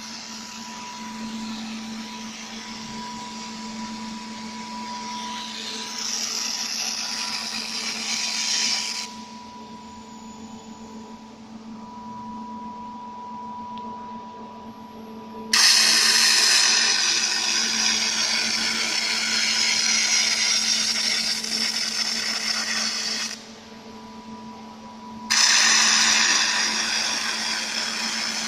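Robot fiber laser welding machine at work: a steady machine hum with a loud hiss over it. The hiss cuts off about nine seconds in, starts again sharply about halfway through, stops briefly near twenty-three seconds, and starts again.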